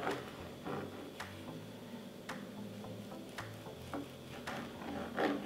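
Kitchen knife slicing through a rolled lavash roll and tapping on a plastic cutting board. About eight short sharp taps at uneven intervals, the loudest at the start and near the end.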